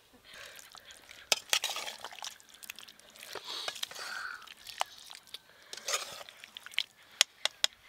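A metal spoon clinking and scraping against a metal bowl as thick curry is stirred and scooped, with wet squelching of the gravy between several sharp clinks.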